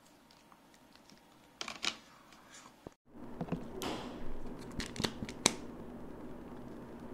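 Hands handling small plastic toys and Kinder Joy plastic eggs: light clicks and taps, a couple about two seconds in, then after a brief gap a busier run of clicks and rustling with one sharper click about five seconds in.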